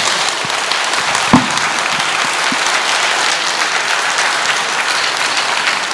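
Audience applauding steadily, with a single low thump about a second and a half in.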